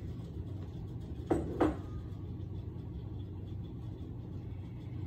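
Two quick knocks of dishware being shifted in a kitchen cabinet, about a second in, over a steady low hum.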